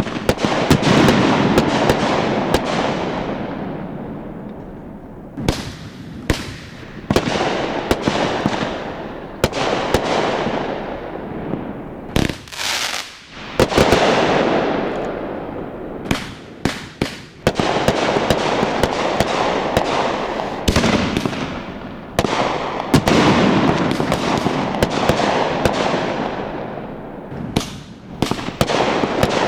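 Aerial fireworks shells bursting in quick succession: sharp bangs, some in rapid clusters, each big burst trailing off over a few seconds.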